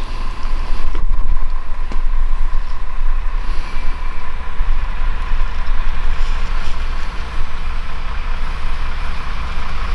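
Diesel railcar engine idling: a steady low rumble with a thin steady whine above it.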